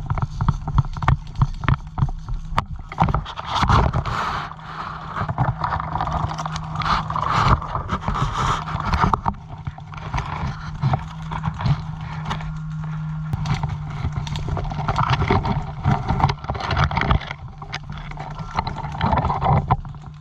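An airsoft player's footsteps and gear rustling close to the microphone, with many irregular sharp clicks and knocks over a steady low hum.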